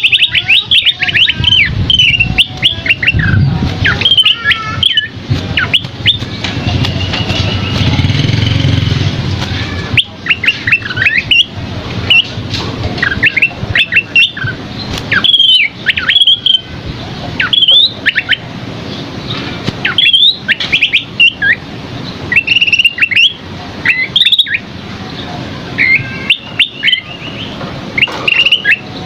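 Asi topi sisik songbird singing vigorously: rapid phrases of quick chirps and up-and-down whistles, broken by short pauses, over a low background rumble.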